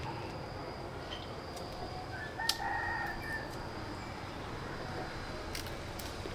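A rooster crowing once, about two and a half seconds in: a short crow lasting about a second over a steady high hum in the background.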